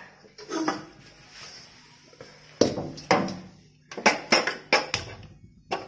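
Metal kitchen utensils clattering and knocking, then a quick run of sharp clicks near the end as the gas stove's knob is turned to light the burner.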